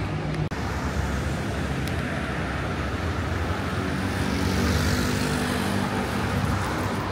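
City street traffic: motor vehicle engines running with road noise, swelling about two-thirds of the way through as a vehicle goes by.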